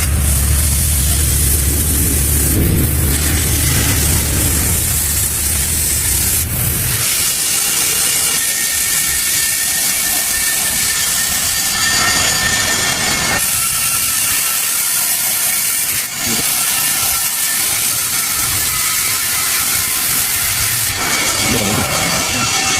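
Electric arc welding: the arc gives a loud, steady hiss with crackle. A low hum sounds underneath for about the first seven seconds, then stops.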